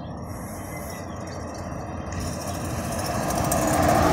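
Diesel locomotive engine rumbling low and steady, growing louder as it approaches.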